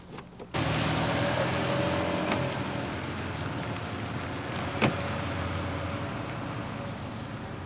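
A car driving away: engine and tyre noise that comes in suddenly about half a second in and slowly fades, with one sharp click near the five-second mark.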